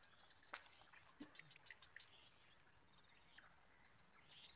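Quiet swamp-edge ambience: an insect trilling steadily at a high pitch, with a single sharp click about half a second in and a few faint short chirps.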